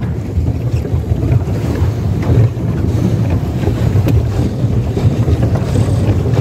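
Wind buffeting the microphone on a small boat moving across a lake: a steady, loud low rumble with water noise beneath it.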